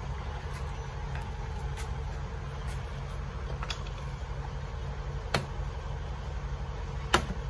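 A few sharp clicks as plastic bumper and wheel-arch trim clips are pried out by hand, the loudest near the end, over a steady low hum.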